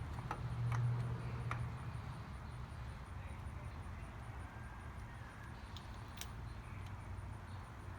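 Faint handling clicks from a new oil filter being fitted by hand onto a motorcycle, over a steady low hum that swells for about a second near the start.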